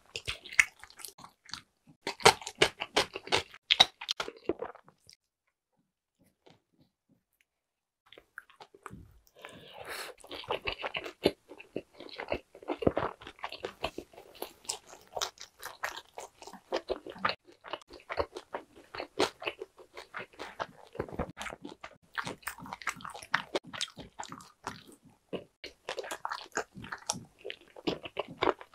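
Close-miked mouth sounds of a person eating: crisp crunching bites of a pickle slice in the first few seconds, a short stretch of near silence, then continuous wet chewing and crunching.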